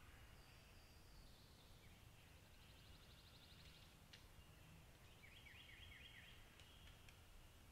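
Faint songbirds calling in quiet woodland: a rapid high trill about three seconds in and a short run of quick falling notes about five seconds in, over a low steady background rumble.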